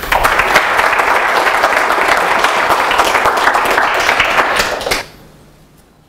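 Audience applauding in a lecture hall, many hands clapping steadily, cut off abruptly about five seconds in.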